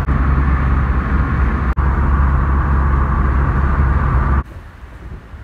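Car driving along a road, a steady drone of engine and road noise heard inside the cabin. About four and a half seconds in it drops suddenly to a much quieter hum.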